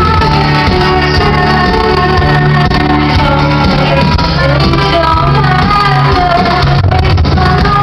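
Live electropop band playing through a concert PA: synth keyboards, electric guitar, bass and drums under a woman's lead vocal, loud and steady, with the echo of a large hall.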